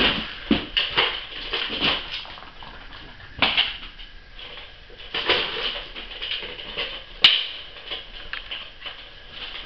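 Ragdoll kitten batting at a round plastic cat toy: irregular clicks, knocks and short rattles, with the sharpest click about seven seconds in.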